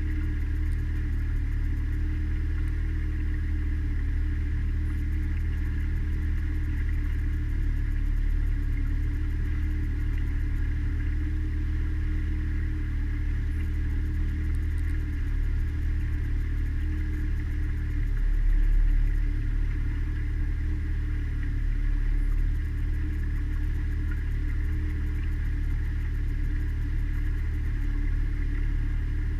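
Mariner outboard motor running steadily, pushing the small cruiser along at an even speed, a constant drone with a brief swell in low rumble about two-thirds of the way in.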